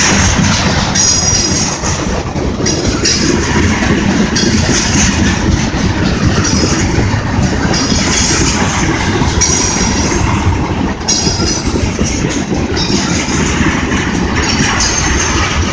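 Freight train of tank cars rolling past close by, a steady loud rumble and rattle of steel wheels on rail, with short high-pitched wheel squeals every second or two.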